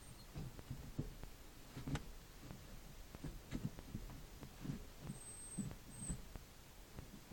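Clutch pedal of a 2008 Toyota Corolla being worked, giving faint, irregular dull creaks and knocks, two or three a second, with a couple of short thin high squeaks about five and six seconds in: the squeaking from the clutch pedal and gearbox linkage.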